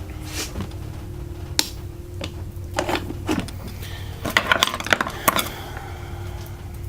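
Hand tools being handled and taken out of a tool bag: scattered light metal clicks and clatter, with a quick run of sharp clicks about four to five seconds in.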